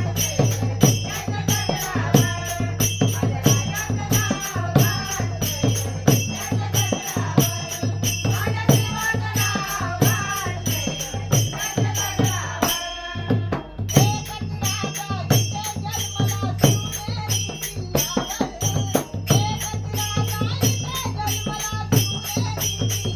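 Instrumental interlude of a Marathi devotional song: a steady beat with jingling, tambourine-like percussion under a melodic lead line. The percussion drops out for a moment about halfway through.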